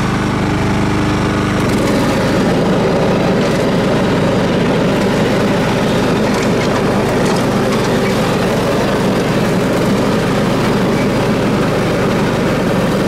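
Simplicity riding lawn tractor's engine running steadily while mowing. About two seconds in, the sound gets rougher and a little louder.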